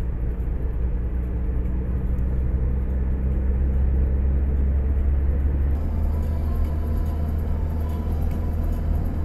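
Steady low rumble of a car on the move, engine and road noise heard from inside the cabin. About six seconds in the sound shifts a little, with more hiss added.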